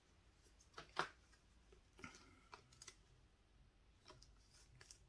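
Near silence broken by a few faint clicks and rustles of trading cards and plastic sleeves being handled, the clearest about a second in.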